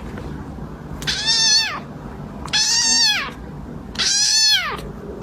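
Domestic cat meowing three times, about a second and a half apart, each meow rising then falling in pitch.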